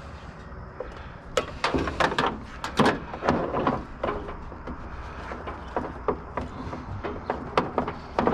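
Clattering and knocking of hard objects being handled and moved about, with a dense run of sharp knocks starting about a second and a half in and thinning to scattered knocks after about four seconds.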